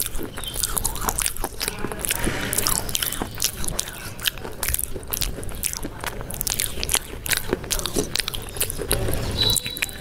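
Close-miked ASMR mouth sounds imitating crunchy eating: rapid wet clicks, smacks and chewing crunches made right at a foam-covered microphone.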